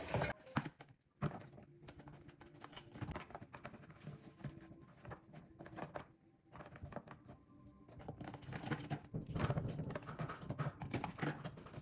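Soft, irregular taps and light handling noises of cut cucumber and celery sticks being laid into a plastic sectioned serving platter, busier about nine seconds in.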